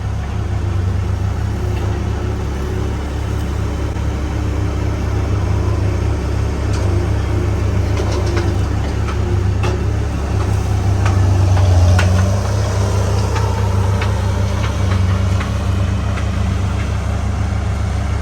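Farm tractor's engine running steadily with a low hum, with a few light clicks and rattles over it.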